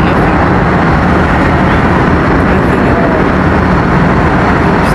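Loud, steady rushing noise with a low hum underneath from a vehicle in motion, unchanging throughout.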